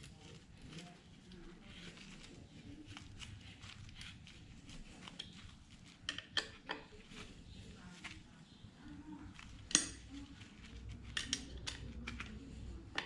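Metal clicks and clinks of a 5 mm hex key tightening a rear shock mounting bolt on an e-bike frame. The taps are scattered, with a sharper clink about ten seconds in and a quick run of them near the end.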